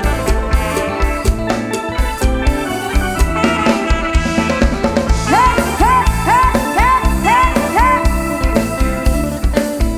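Instrumental break of a live mor lam band: drum kit beat and bass line, with a lead instrument playing six short swooping phrases in a row about halfway through.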